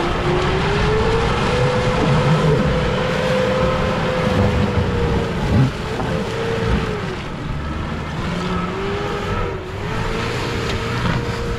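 A 4WD's engine working under load as it crawls through deep mud ruts, its note rising at the start, holding, then dipping and picking up again around the middle.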